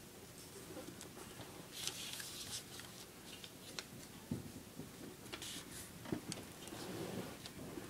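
A sheet of paper being folded and creased by hand: faint rustles and scrapes as its corners are folded in and pressed flat, with a few small ticks.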